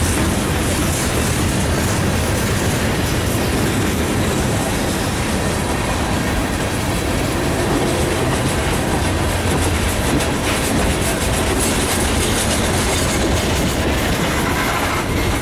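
A freight train's cars, tank cars and then gondolas, rolling steadily past close by: a continuous rumble of steel wheels on the rail with a rapid clickety-clack.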